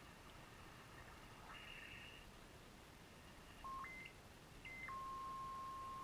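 Shortwave SDR receiver audio on the 40-metre band: faint band hiss, then a carrier heard as a whistling beat tone that jumps up and down in pitch in steps as the receiver is tuned, then holds on one steady tone for the last second or so.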